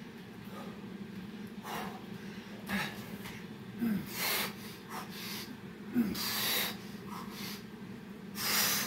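A man breathing hard from exertion during burpees, with a series of sharp, forceful exhales every second or two.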